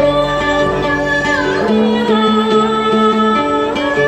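Tày then (hát then) folk singing with a đàn tính gourd lute: long held sung notes that slide between pitches over plucked-lute accompaniment.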